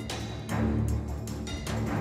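Background music: sustained low notes under a regular beat of heavy drum hits.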